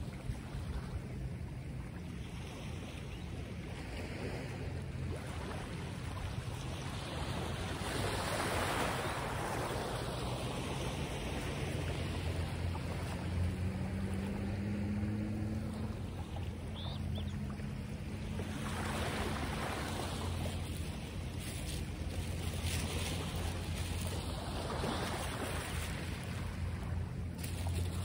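Surf and wind noise swelling and fading every few seconds, over a low steady hum.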